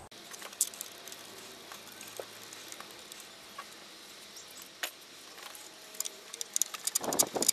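Light metallic clicks and small rattles of bolts and a bracket being handled and fitted by hand in a car's engine bay, with a quick run of ticking and a brief rustle near the end.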